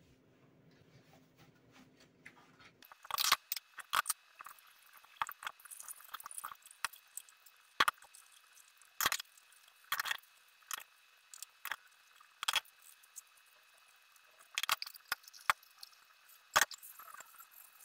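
Irregular light clicks and taps of small objects being handled, starting about three seconds in, some a little louder than the rest.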